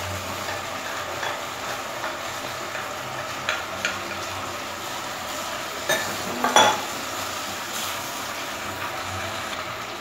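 Chicken pieces and chopped onion sizzling in hot oil in a stainless-steel pot, a steady hiss. A wooden spoon stirs them and knocks against the pot a few times, loudest a little past the middle.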